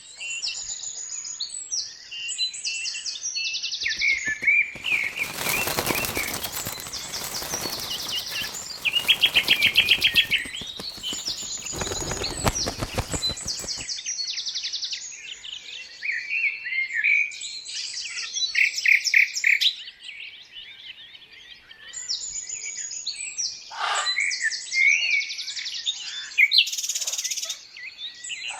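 Birdsong: many quick, high chirps and trills overlapping without pause. From about four to fourteen seconds in, a loud, rapid rasping rattle runs under them.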